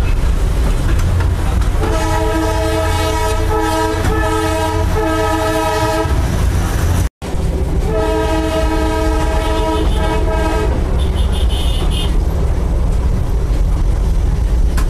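Toy train's horn sounding in two long, steady blasts, one about two seconds in and another midway, over the steady low rumble of the moving coach heard from inside the carriage.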